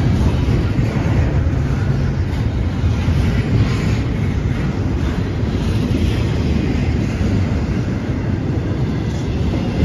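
Double-stack intermodal well cars of a freight train rolling past: a steady, loud, low rumble of steel wheels on the rails.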